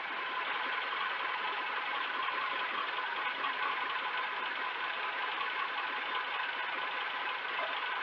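Steady outdoor background hiss picked up by the feeder camera's microphone, with no distinct event.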